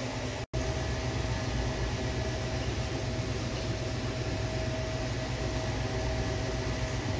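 Steady hum and hiss of aquarium filtration equipment running in a fish room, with a faint steady tone over a low drone. The sound cuts out for an instant about half a second in.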